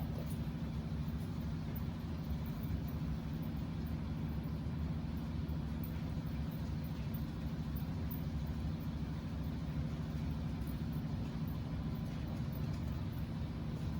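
A steady, low mechanical hum that runs on evenly without change.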